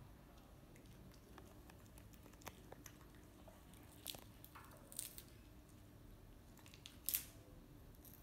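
A baby monkey eating fruit: quiet chewing with a few scattered sharp crunches and clicks, the loudest about seven seconds in.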